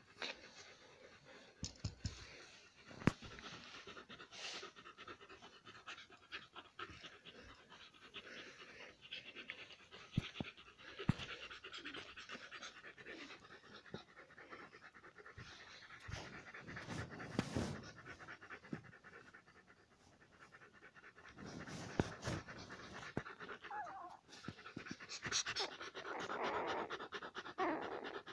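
Alaskan Malamute panting close to the microphone, with a scattering of sharp knocks and scuffs from the phone being handled against the dogs.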